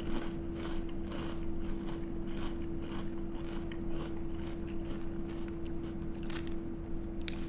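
Someone chewing a mouthful of Golden Grahams cereal in milk, a run of crunchy chews about twice a second, over a steady low hum.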